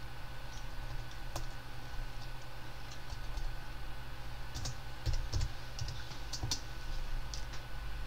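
Irregular computer keyboard keystrokes and clicks, a few scattered taps, over a low steady hum.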